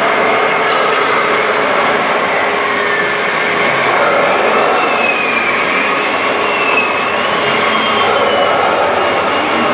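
Electric motors and gearboxes of radio-controlled construction models whining under a steady mechanical hiss, the whine gliding up and down in pitch as the machines speed up and slow.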